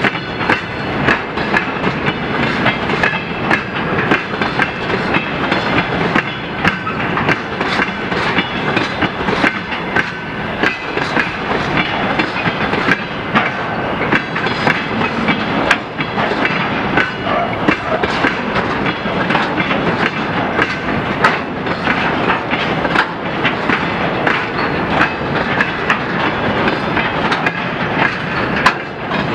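A freight train of tank cars rolling past, its wheels clicking and clattering over the rail joints in a steady, continuous stream.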